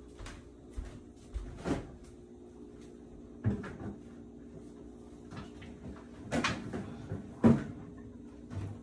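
Kitchen cupboard doors being opened and shut off-camera: a series of wooden knocks and clunks, about four louder ones, the loudest near the end, over a steady low hum.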